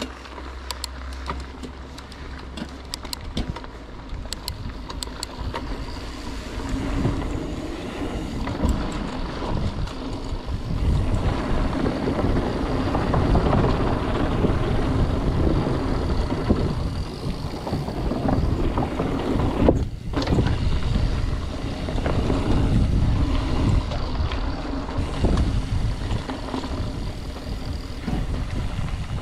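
Mountain bike riding fast down a dirt singletrack: tyres rolling and rattling over dirt and roots, the bike's parts clattering, and wind buffeting the helmet-camera microphone, getting louder as speed builds. Around the middle the tyres cross a wooden plank boardwalk.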